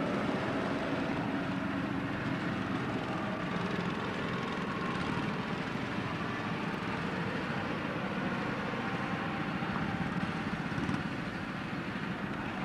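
Go-kart engines running on the track, a steady drone as the karts circle.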